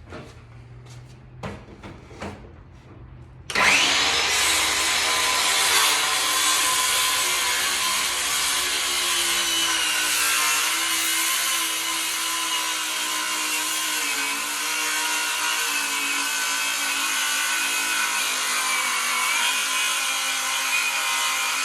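A few light clicks and knocks, then about three and a half seconds in a circular saw fitted with a finish blade starts and runs steadily, cutting a long straight line through a door, its whine wavering slightly under load.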